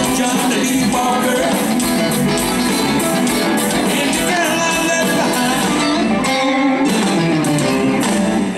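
Live southern rock band playing, with electric guitar to the fore over bass guitar and drums.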